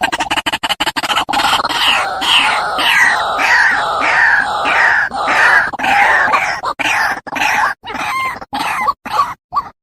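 White-breasted waterhen (ruak-ruak) calling. A fast run of pulses gives way after about a second to repeated calls about twice a second, which slow and break into short separate notes near the end.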